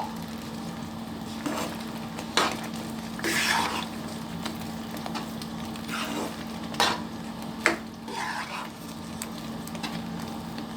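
Spatula stirring and scraping thick wheat halwa in a kadai, with ghee sizzling in the pan; several separate scrapes and knocks against the pan over a steady low hum.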